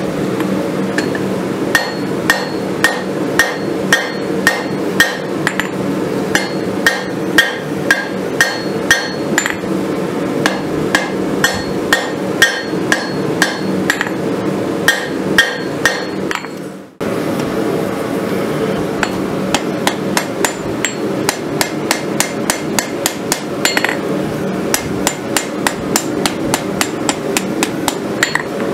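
Blacksmith's hand hammer forging a red-hot steel blade on an anvil: steady blows about two a second, each with a high ring. After a break about two-thirds of the way through, the blows come quicker and lighter. A steady hum runs underneath.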